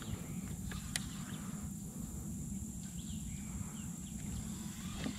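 Quiet outdoor ambience: a steady high insect drone over a low rumble, with a single sharp click about a second in.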